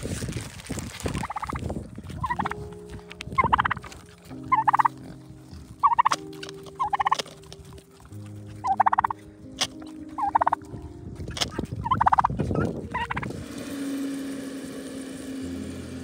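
Domestic tom turkey gobbling over and over, about ten short gobbles roughly a second apart.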